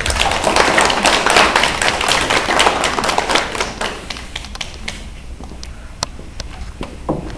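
Small audience applauding, with dense clapping for the first four seconds that thins out to scattered claps.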